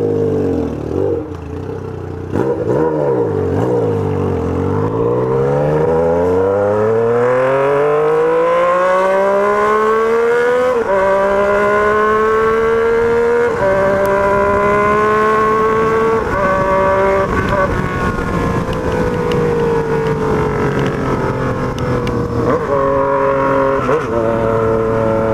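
Yamaha MT-09's three-cylinder engine pulling away from a stop: a couple of short revs, then one long rising pull through the revs, two quick upshifts where the pitch drops, and then the revs ease down and hold steady while cruising.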